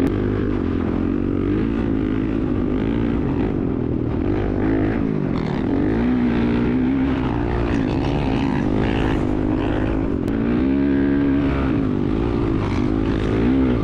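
Dirt bike engine running hard as it is ridden, its pitch rising and falling again and again as the throttle is worked.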